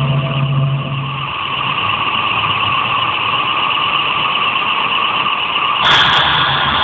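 Electronic noise drone from a spinning audiovisual light sculpture, steady and hissy, with a low hum that fades out about a second in; near the end a sudden burst of hiss shifts it to a brighter, higher tone.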